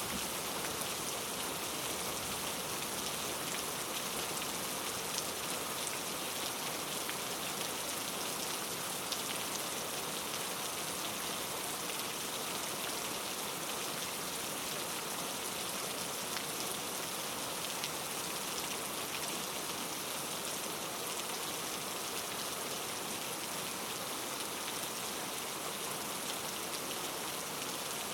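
Steady rain falling, a dense even sound of many small drops.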